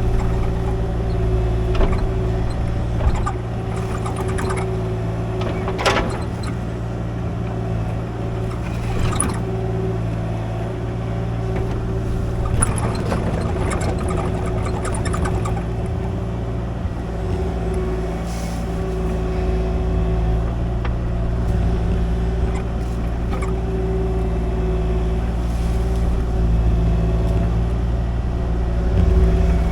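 Kubota KX-040 mini excavator's diesel engine running steadily while digging and levelling. Short knocks and clanks come about six seconds in and again around the middle, and the engine gets a little louder near the end.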